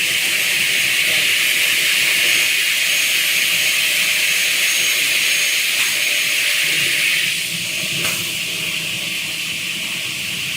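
Single-head aluminium cutting saw with a 500 mm blade making an automatic cut: a loud, steady hiss that eases off about seven seconds in, followed by a short click.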